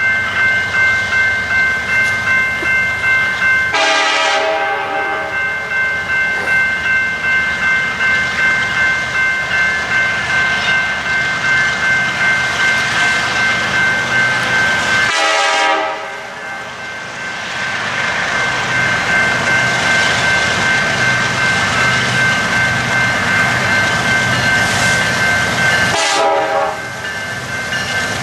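Railroad crossing bell ringing steadily about twice a second at an active grade crossing, with the rumble of an approaching diesel freight train growing in the second half.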